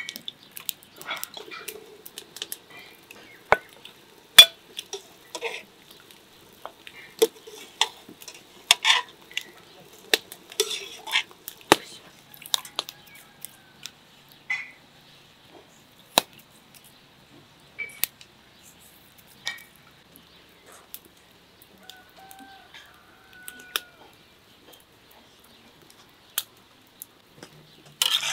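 Sharp, irregular clinks and taps of a metal spoon against a frying pan and a stainless steel stockpot.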